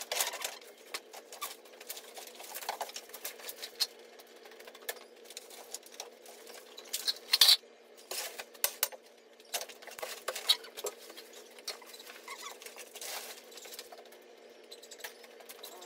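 Scattered crunching and crackling of broken plaster rubble and dry twigs under a worker's rubber boots as he steps through the debris, with a louder cluster of crackles about seven seconds in.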